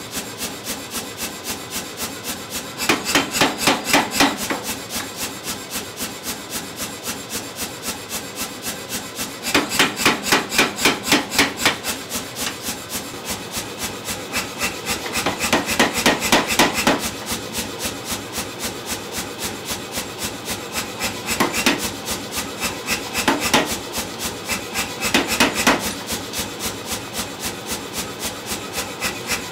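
Power hammer forging a hot steel block: six runs of heavier rapid blows, each a second or two long, about four blows a second, with a steady lighter rapid knocking from the running hammer between them.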